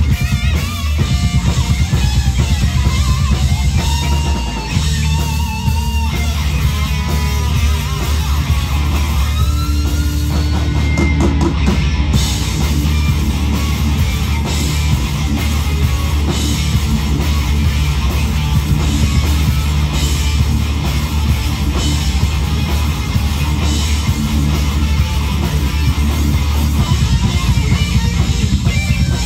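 Live rock band playing an instrumental passage: two electric guitars, a bass guitar and a drum kit, with a heavy, steady low end. A wavering melodic line stands out in the first several seconds before the playing settles into a dense, continuous texture.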